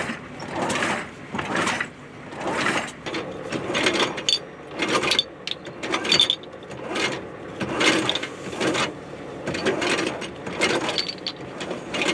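Irregular metallic clanks and ratcheting from hand work on a helicopter's weapon mount and gun turret during rearming, about one or two sharp strikes a second.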